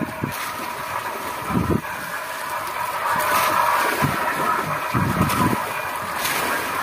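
Wind buffeting the microphone in uneven gusts over a steady hum and the rush of the sea around a small outrigger fishing boat.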